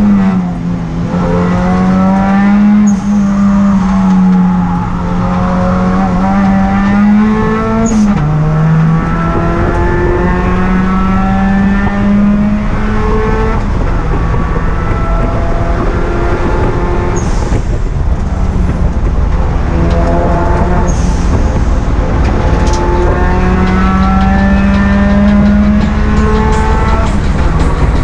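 Turbocharged Honda D16 four-cylinder in an EK Civic race car running hard on track at a fairly steady pitch, with dips in engine pitch about 8 and 13 seconds in.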